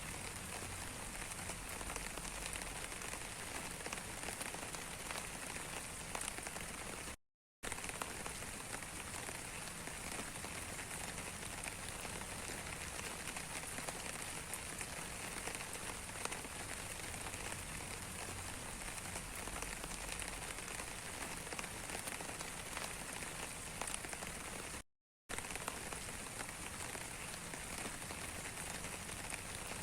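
Steady rain falling, a dense even hiss with many small drop ticks. The sound cuts out completely twice for a fraction of a second and comes straight back.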